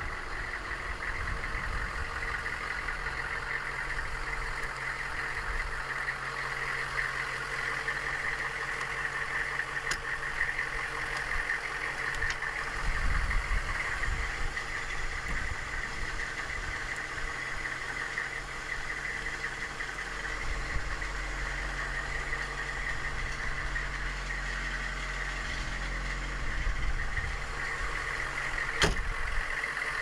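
AM General M1165 Humvee's 6.5-litre turbocharged diesel V8 idling steadily, with a steady high-pitched whir over the low engine note. A single sharp click comes about a second before the end.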